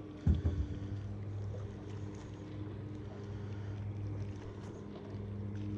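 A single sharp knock on the kayak about a third of a second in, over a steady low hum.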